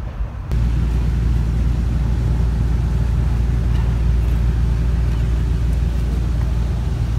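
Steady low rumble of road traffic, with a faint hum over it, starting abruptly about half a second in.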